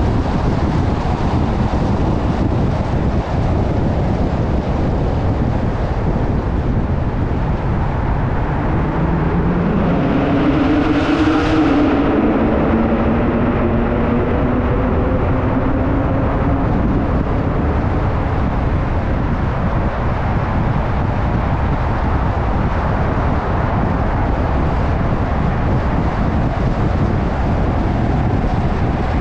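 Steady road noise from a car driving along an underground concrete roadway: a low rumble of tyres and wind. About ten seconds in, an engine note swells, shifts in pitch and fades over a few seconds.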